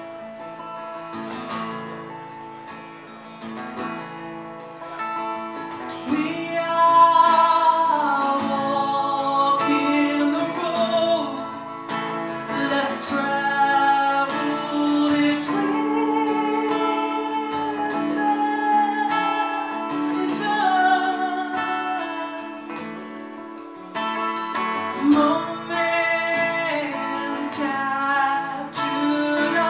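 A song played live: a woman singing into a microphone over a strummed acoustic guitar, the music getting louder about six seconds in.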